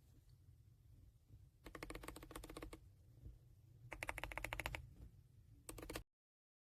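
Typing on a mechanical keyboard: three runs of rapid key clicks, the last one short, after which the sound cuts off suddenly.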